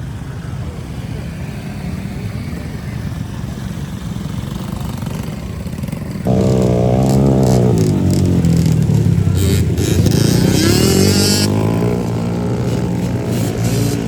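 Motorcycle engines: a steady low rumble, then about six seconds in a motorcycle gets suddenly loud and revs, its pitch falling then climbing again before it eases off near the end.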